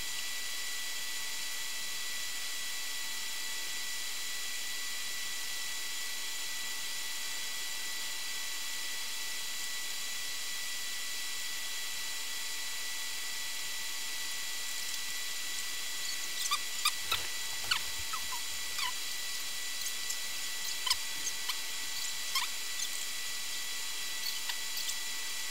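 Steady hiss with faint fixed high whines throughout. From about two-thirds of the way through, a scattering of short, high chirps from a small animal, a dozen or so, some rising in pitch, loudest near the end.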